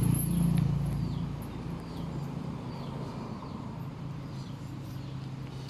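Yamaha Mio Sporty scooter's single-cylinder engine running through an aftermarket Nob1 Titan dual exhaust pipe. It is louder for the first second or so, then settles to a steady idle.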